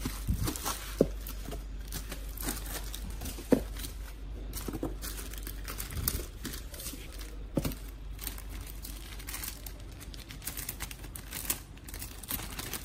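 Clear plastic shrink wrap crinkling and tearing as it is peeled off a cardboard box, with two sharp knocks about one and three and a half seconds in.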